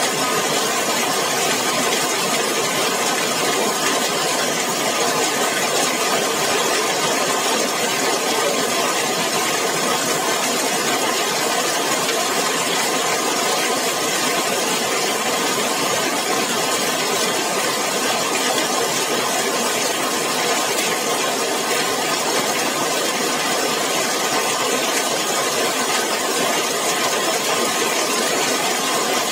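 Heavy rain falling steadily on a zinc sheet roof, a dense, even patter with no let-up.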